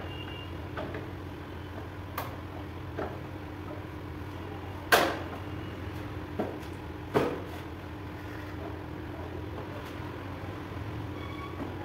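Scattered knocks and clicks from parts of a KTM 390 motorcycle being handled as it is stripped: plastic fairing panels and fittings coming loose. About six sharp knocks, the loudest about five seconds in and another about seven seconds in, over a steady low hum.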